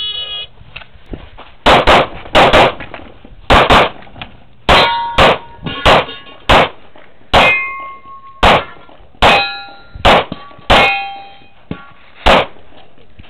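A shot timer's short start beep, then a handgun fired about seventeen times in quick strings, with ringing after several shots as hits land on steel targets.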